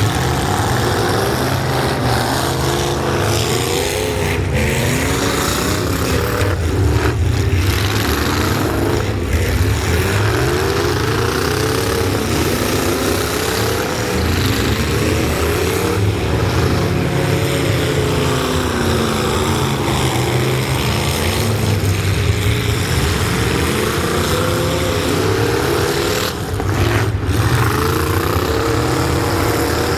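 Loud, continuous truck engine noise, with the pitch rising and falling as the engines rev. More than one engine tone overlaps.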